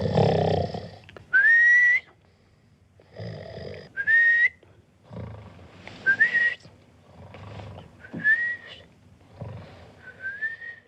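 A man snoring in a comic rhythm: each rasping snore is followed by a short whistle that rises in pitch. The cycle comes five times, about every two seconds.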